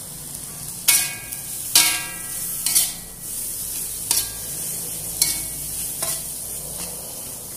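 Green capsicum and onions stir-frying in a wok: oil sizzles steadily while a metal spatula scrapes and knocks against the pan about six times, each knock ringing briefly.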